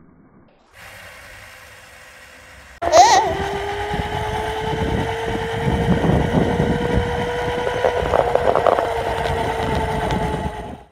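Electric scooter's motor whining steadily under a dense rumble and rattle of small wheels on asphalt, heard up close from a camera mounted on the scooter. The whine starts suddenly about three seconds in and rises a little in pitch as the scooter picks up speed.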